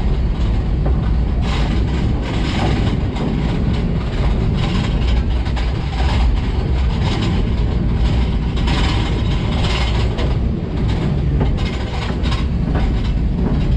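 Caboose rolling slowly along the track, a steady low rumble from the running gear with irregular clicks from the wheels over the rail.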